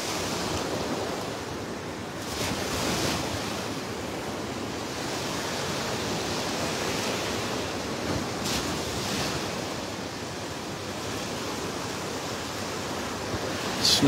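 Rough surf breaking on a sandy beach: a steady wash of waves that swells louder twice, about two seconds in and again about eight seconds in.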